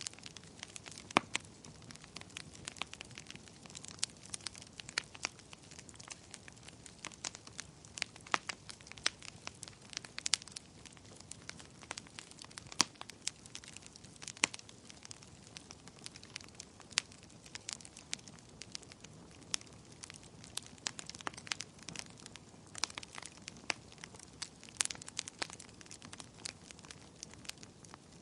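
Fire crackling: irregular sharp pops and snaps, several a second, over a soft low rush of burning.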